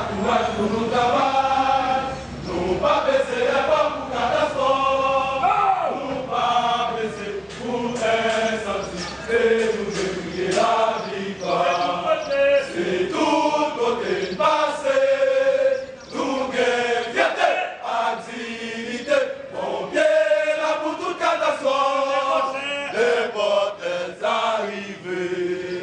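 A group of men chanting a marching song in unison, the voices held on sung notes rather than spoken.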